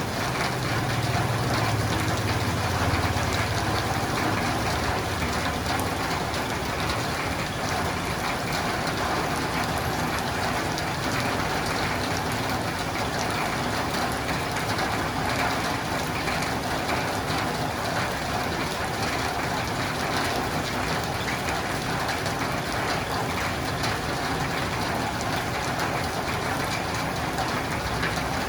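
Steady rain falling on a roof and windows, an even hiss of drops with no let-up. A low rumble sits underneath for the first few seconds.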